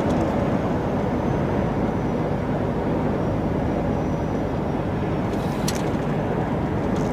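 Steady engine and road rumble of a heavy goods lorry driving at speed, heard from inside the cab.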